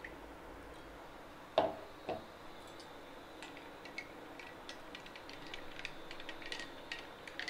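A metal spoon knocks twice against a drinking glass, then clinks lightly and quickly against the glass and ice while stirring watermelon juice.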